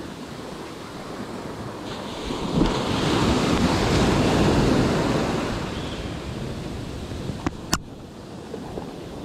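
Ocean surf washing up a sandy beach, swelling to a rush about a third of the way in and then drawing back, with wind buffeting the microphone. Two sharp clicks near the end.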